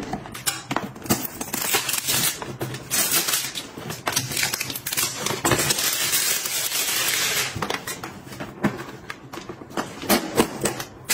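Clear plastic shrink wrap crinkling and crackling as it is peeled off a paperboard box, with many small crackles and a stretch of continuous crinkling in the middle. Near the end, sharper clicks as the box's perforated tear strip is pulled open.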